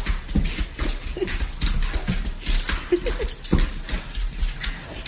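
A dog whimpering a few short times, about three seconds in, amid repeated clicks and scuffling noises.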